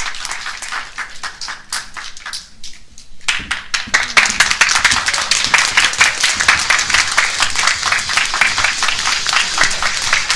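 Audience clapping in applause; it thins out a couple of seconds in, then swells into dense, louder applause about three seconds in.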